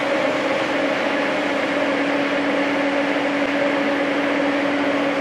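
Jonsen 40-inch dry wide belt sander running: a steady machine hum over an even rushing noise, with no change in level.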